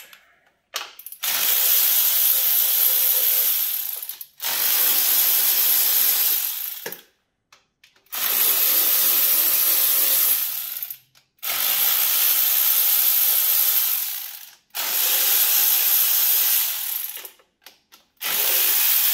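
Cordless electric ratchet spinning out valve-cover bolts. It runs in about six bursts of two to three seconds each, with short pauses between them as the tool moves from bolt to bolt.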